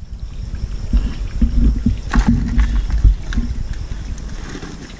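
Heavy low rumble and thumps of a hand-held camera being jostled, with water sloshing as someone moves through shallow river water, easing off over the last second or two.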